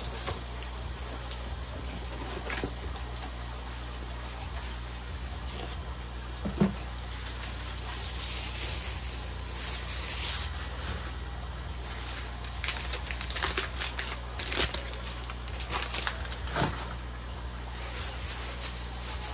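Packaging being handled and unwrapped: irregular crinkling and rustling with scattered clicks, busiest in the second half, and one sharp knock about six and a half seconds in, over a steady low hum.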